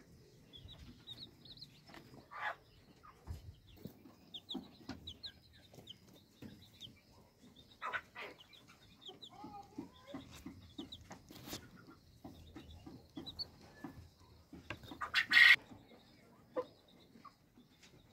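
Newly hatched chicks peeping in short high chirps around a broody hen, who clucks now and then, with soft ticking from chicks pecking at the feed dish. A loud, short call cuts in about fifteen seconds in.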